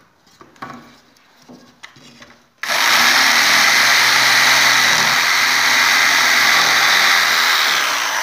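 Electric jigsaw, its pendulum action set to zero, switched on about two and a half seconds in and cutting a curve through plasterboard with a loud, steady buzz. Before it, a few light knocks of the boards being handled.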